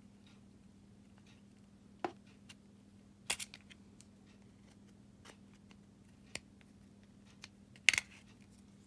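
Small flathead screwdriver prying at the seam of a Fiat 500 plastic key fob shell, giving a few scattered sharp plastic clicks and snaps as the casing is worked open. The loudest is a double click near the end.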